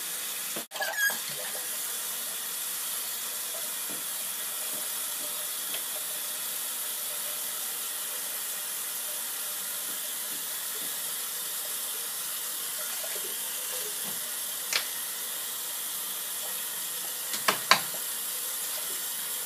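Hot water tap running steadily into a bathroom sink. A few sharp knocks come through over it about three-quarters of the way in and near the end.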